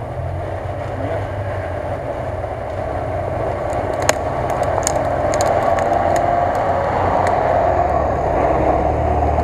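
GAZ-66 army truck driving toward the listener along a muddy track, its engine running steadily and growing louder as it approaches. A few light ticks about four to five seconds in.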